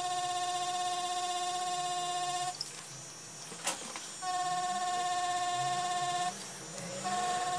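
DragonHawk Mast Archer wireless rotary tattoo machine running with a steady high motor whine while packing colour into fake skin. It stops twice, first for about a second and a half with a single sharp click in the pause, then briefly near the end, restarting each time.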